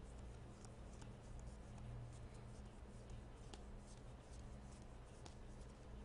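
Faint slides and ticks of glossy baseball trading cards being thumbed through one at a time, card edges rubbing and snapping against each other, over a low steady hum.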